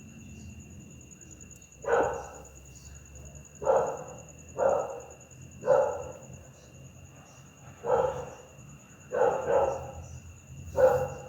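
Pit bull barking, about eight loud single barks at uneven gaps, two in quick succession just after the middle. Night insects trill steadily behind.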